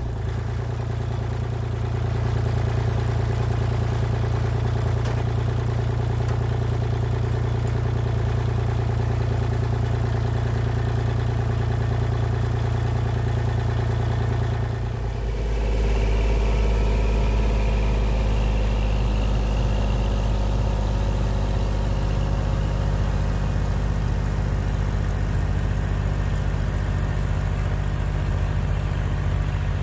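Kubota L2501 compact tractor's three-cylinder diesel engine running steadily close by. About halfway through, the sound shifts abruptly to a deeper, heavier running as the tractor drives with its rear PTO snowblower throwing snow.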